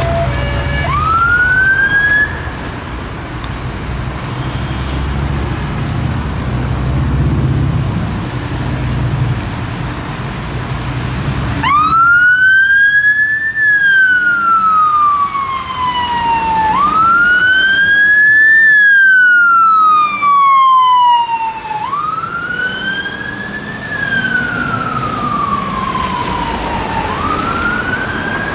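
Fire engine siren wailing, each cycle rising quickly and falling slowly over about five seconds, with a heavy low engine rumble under it. About twelve seconds in the siren becomes much louder and the rumble drops away.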